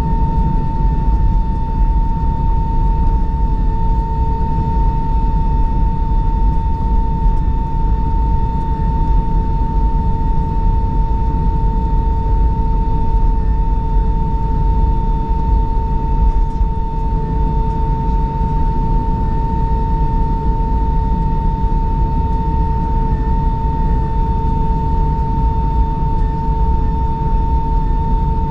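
Airbus A319 cabin noise while taxiing: a steady low rumble under a constant high-pitched whine.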